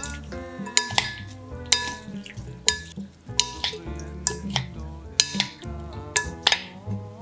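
Two wooden salad spoons tossing a shrimp and glass noodle salad in a glass bowl, knocking against the glass at uneven intervals about once a second, each knock ringing briefly. Background music plays throughout.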